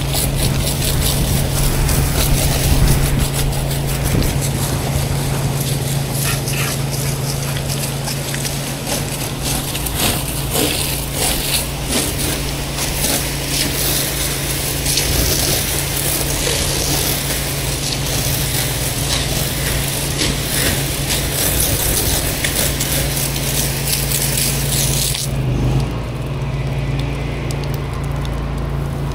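Pressure washer wand spraying water onto the townhouse wall in a steady hiss, with the pressure washer's engine humming steadily underneath. About 25 seconds in the spray cuts off suddenly as the trigger is released, leaving the engine running on its own.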